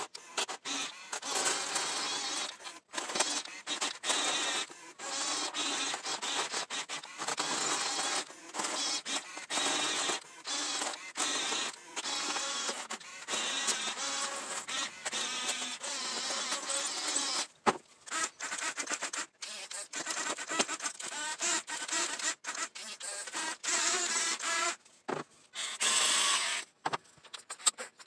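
Small electric drive motors and gearboxes of Diecast Masters 1/24 scale RC construction models (bulldozer and articulated dump truck) whirring in short stop-start bursts as they are driven.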